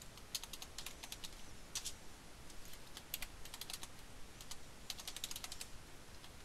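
Computer keyboard being typed on in several short bursts of quick keystrokes, with brief pauses between the bursts.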